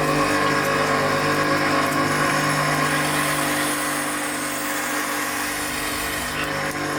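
Parkside bandsaw running, a steady motor hum with a hiss above it, coming in suddenly at the start.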